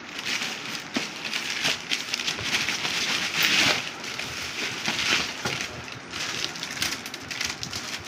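Thin HDPE plastic wrapping crinkling and rustling as it is handled and pulled off an air conditioner's indoor unit, with a burst of louder crinkling about halfway through.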